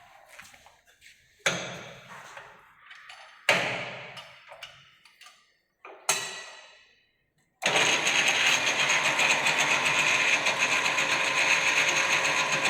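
Three sharp clunks, each ringing briefly, then about three-quarters of the way in a metal lathe starts up and runs steadily, its motor and gears giving a dense mechanical whirr.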